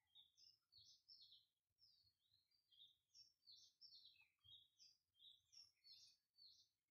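Faint birdsong: a busy, unbroken run of short, high chirping notes, several a second.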